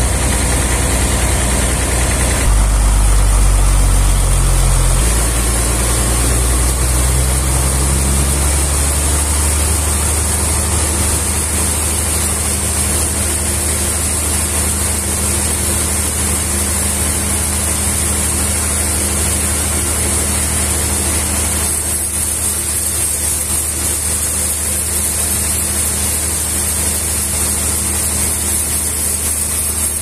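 Large band sawmill's machinery running with a loud, steady drone. Its low hum shifts in the first several seconds, then holds steady.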